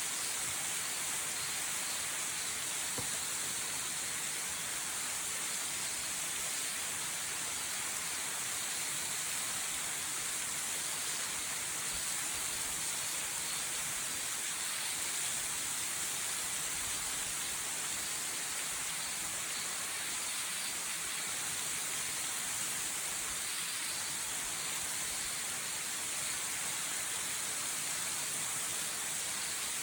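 Waterfall: a steady, unbroken hissing rush of falling water.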